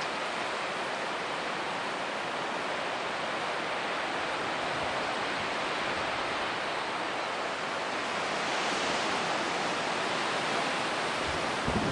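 Steady rushing outdoor noise with no distinct events, swelling slightly about eight seconds in.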